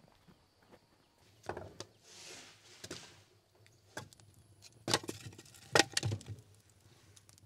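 Split firewood logs knocking against one another and against stone as they are handled and dropped into a tandoor: a run of sharp wooden knocks, the loudest about five and six seconds in.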